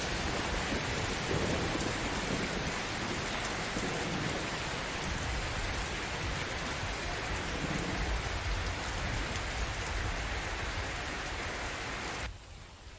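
Steady heavy rain with low, rolling thunder swelling a few times underneath. Near the end the rain cuts off abruptly, leaving only a faint low rumble that fades.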